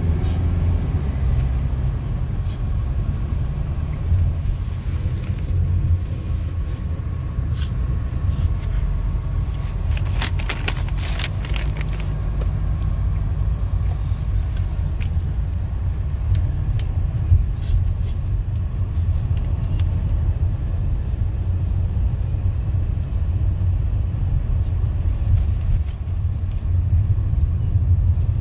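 Steady low rumble of a van driving on the road, heard from inside the cabin, with a few brief clicks or rattles about ten seconds in.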